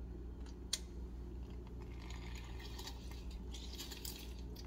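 Half a lime squeezed in a hand-held lime squeezer over a glass blender jar, with lime juice trickling into the jar. There is one light click under a second in, a soft trickle in the second half, and a low steady hum underneath.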